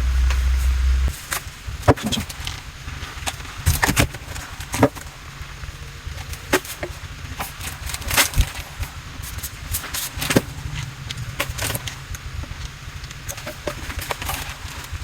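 Irregular clicks and knocks of parts and tools being handled during dishwasher and under-sink plumbing work. A low hum cuts off suddenly about a second in.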